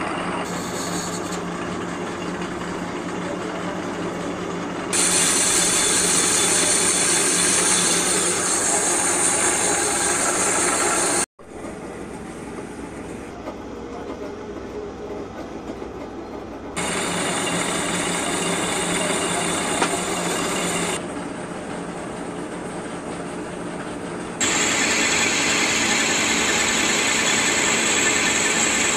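Metal lathe running with a steady hum, and stretches of louder high hiss as the cutting tool bites into the spinning steel part. The sound cuts out abruptly about eleven seconds in, then the machine is heard again.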